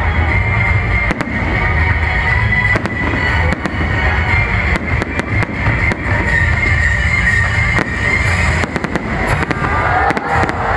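Aerial firework shells bursting overhead: a string of sharp bangs over a steady low rumble, coming thicker and faster near the end as a larger salvo goes up.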